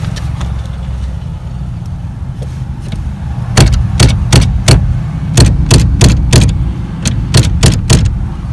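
Maruti Swift steering column knocking sharply over a low steady hum, about three knocks a second, beginning about three and a half seconds in. This is play in the column from a bolt whose nut has come off and let the bolt work loose.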